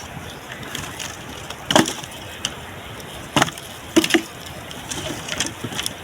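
A few sharp knocks, like wood striking, over a steady hiss: three loud ones, the last two close together, with lighter clicks between.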